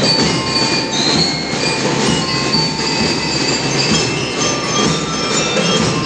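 School drum and lyre band playing: a dense, steady drumming with metal bell lyres ringing high melody notes above it.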